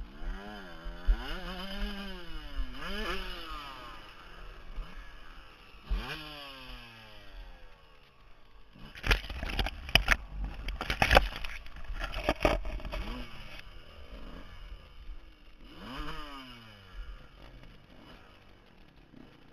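Dirt bike engine revving up and down on a rocky climb, then about nine seconds in a run of loud knocks and clatter as the bike goes down into a bush, lasting some three seconds; the engine revs again near the end.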